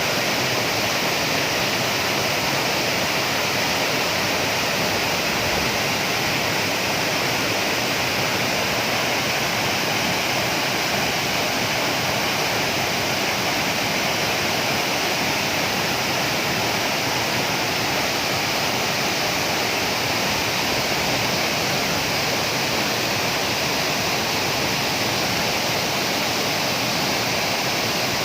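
Waterfall rushing steadily, a constant even roar of falling water.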